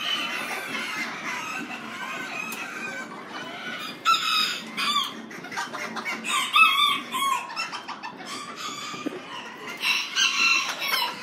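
Miniature chickens calling: roosters crowing and hens clucking, with a drawn-out call near the start and further groups of calls about four, six to seven, and ten seconds in.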